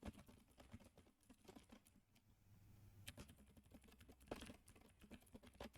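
Keys of a Keychron K8 Pro mechanical keyboard with blue switches being pressed, a few faint, scattered key clicks, very quiet for clicky switches.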